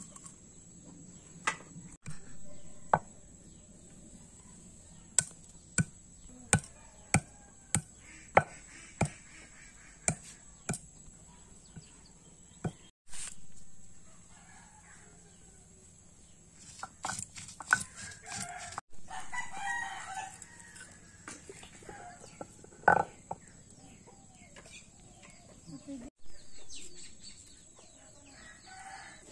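Stone grinding stone knocking down onto a flat stone slab about a dozen times in an uneven beat, cracking whole spices before grinding. Partway through, a rooster crows and chickens cluck, over a steady high hiss.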